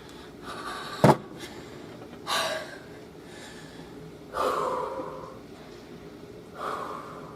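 A person breathing out in heavy, audible gasps and sighs, four times. There is a single sharp click about a second in.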